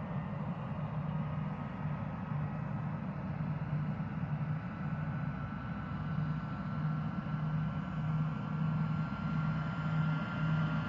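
Airplane engine drone: a steady rushing noise over a low hum that pulses slowly, with a faint high whine rising gradually and the level building slightly toward the end.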